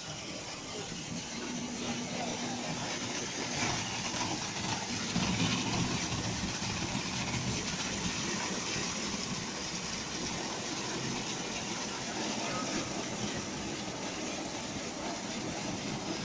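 Risense tunnel car wash machine at work: rotating brushes scrubbing a car as the conveyor carries it through, with water spraying over it and a steady low machine hum. The noise grows louder about five seconds in as the brushes close on the car.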